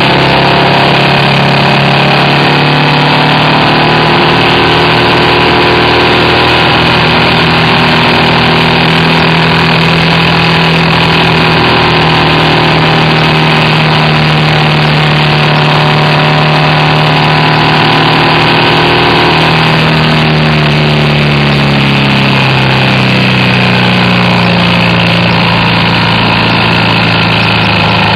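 BMW R1200RT's boxer-twin engine running steadily under way, its note dropping about twenty seconds in.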